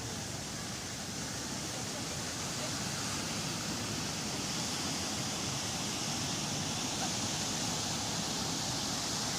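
Sea waves washing on a beach: a steady rush of surf that slowly swells louder.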